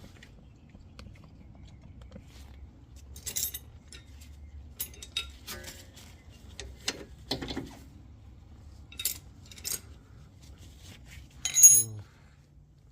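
Metal tool clinking and knocking against the brake caliper's 14 mm bolts as they are loosened: about eight separate strikes, with the loudest clank near the end.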